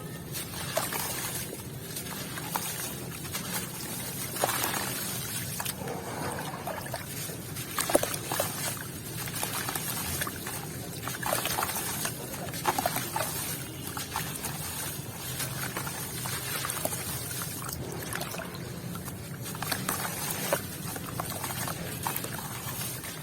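White cement with grains, partly wet, being crumbled and crunched in the hands: a run of irregular gritty crackles mixed with trickling, dripping water.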